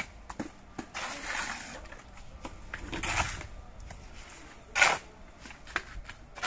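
Steel shovel scraping through a pile of wet sand-and-cement mortar on a concrete surface. Three strokes, the last a short, sharp scrape that is the loudest, about five seconds in, with small knocks and clicks between.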